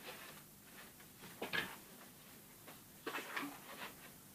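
Quiet room with a few faint knocks and rustles of someone handling objects: one brief clatter about one and a half seconds in, then a short cluster of small knocks about three seconds in.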